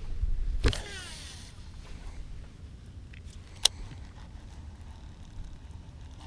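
Cast with a baitcasting reel: a rush of wind and arm movement, then a click and the spool whirring with a falling pitch as the line pays out. About three and a half seconds in there is a single sharp click, then only a faint steady wind noise.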